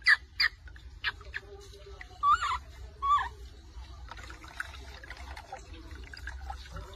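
Water poured from a scoop over a baby macaque in a plastic bucket, trickling and splashing. The baby gives two short whimpering cries about two and three seconds in.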